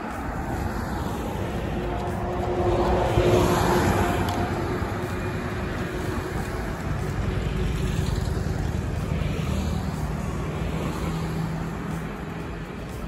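Motor vehicles passing on the road alongside: a steady traffic rumble, with one vehicle passing loudly about three to four seconds in and another, lower-pitched one passing around eight to twelve seconds.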